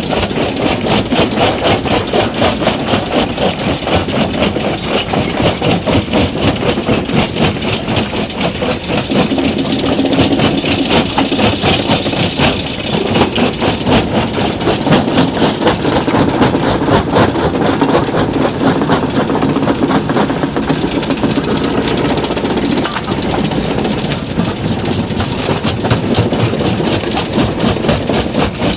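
Stone crusher machine running under load, a loud, steady mechanical din with an even, rapid pulsing rhythm.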